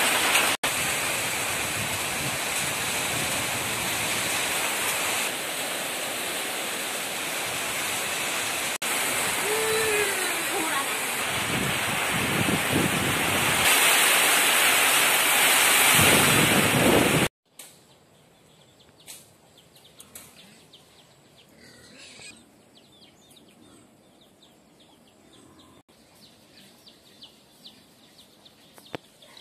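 Heavy rain pouring down, a loud steady hiss. About two-thirds of the way through it cuts off abruptly to a quiet outdoor background with faint scattered clicks and a distant animal call.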